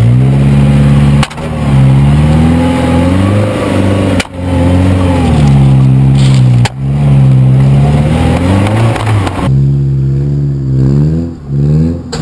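1998 Suzuki Grand Vitara engine running under way, its pitch rising and falling as the vehicle speeds up and slows. Three sharp clicks cut through it, about a second in, at about four seconds and near seven seconds.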